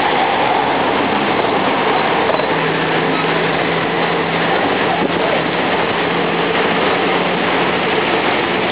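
Road tourist train running along a city street, heard from its open carriage: a steady rush of engine, tyre and street noise, with a faint low hum joining a few seconds in.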